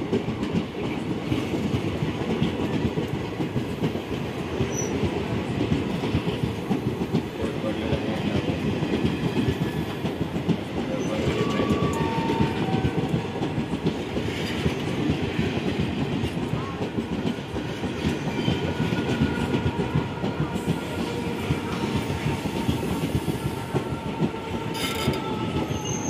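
Passenger train coaches rolling past close by at a steady pace: a continuous rumble of steel wheels on the rails, with the clickety-clack of wheels over rail joints. A faint thin tone comes and goes in the second half.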